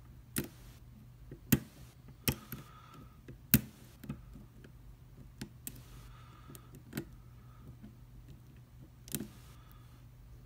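A lock pick and tension wrench working the serrated pins of a Commando pin-tumbler padlock: irregular sharp clicks of pins setting and dropping, with brief light scraping of the pick between them.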